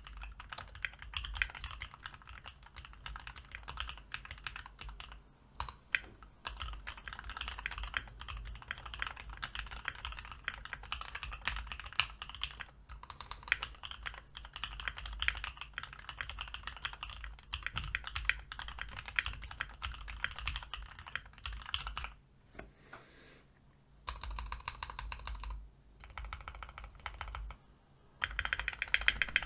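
Typing on a Keychron Q1 mechanical keyboard with lubed JWICK Black 63.5 g linear switches, ASA-profile keycaps, and tape and PE foam mods inside. The keystrokes run steadily, stop for about two seconds two-thirds of the way through, and end with a fast run of keystrokes.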